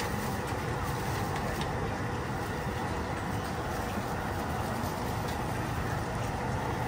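Steady night-market background noise: a continuous low rumble with a dense haze of indistinct activity and a few faint ticks now and then.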